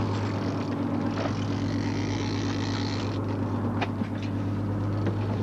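Fishing boat's engine running steadily with a low, even hum, under a wash of wind and water noise. There is one sharp click about four seconds in.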